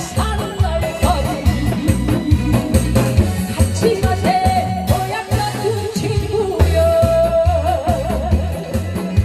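A singer performing live over an amplified backing track with a steady heavy bass beat, holding notes with vibrato.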